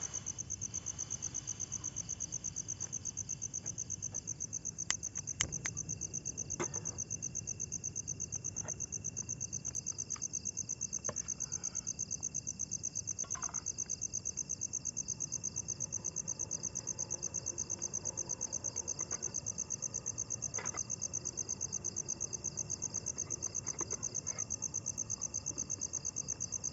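Crickets trilling steadily in a high, rapidly pulsing chorus, with a second, thinner steady insect tone below it. A few faint clicks and knocks come through now and then.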